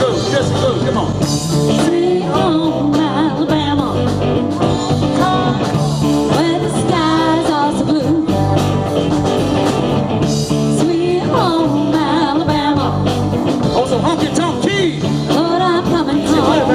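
Live rock band playing a song with singing, electric guitar, keyboard and drums.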